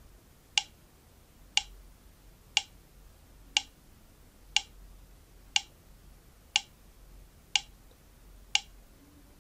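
Short ticks from an audio/video sync test, one every second, nine in all, played through Ugreen HiTune T3 wireless earbuds. The offset between each tick and the flash on screen shows the earbuds' Bluetooth latency, which is small.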